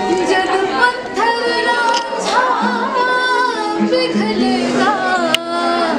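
Music with a singing voice over it, the melody gliding up and down above steady instrumental notes.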